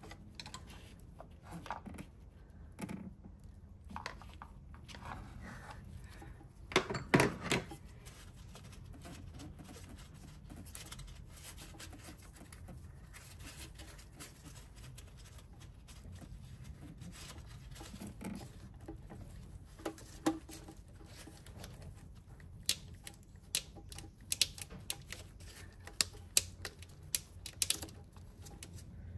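Small hand tools clicking and tapping against metal engine parts while T20 Torx screws are undone. There are scattered sharp clicks, a louder cluster of knocks about seven seconds in, and a run of sharp, separate clicks in the last third.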